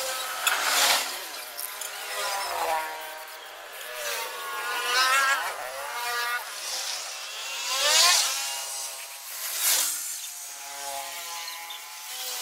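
Aerosol spray-paint can hissing in several short bursts as black paint is sprayed onto a steel frame, while an engine revs up and down alongside it.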